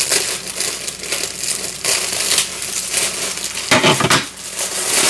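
Plastic packaging bag crinkling and rustling as it is handled and pulled open by hand, with a louder crackle about four seconds in.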